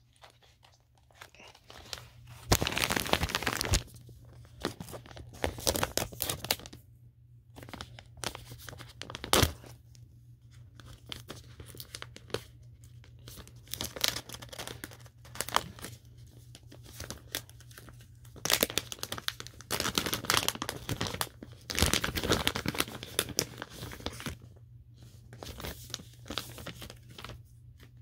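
Product packaging being torn open and crinkled by hand: a shiny plastic pouch rustling and ripping in irregular bursts, loudest a few seconds in and again for several seconds past the middle.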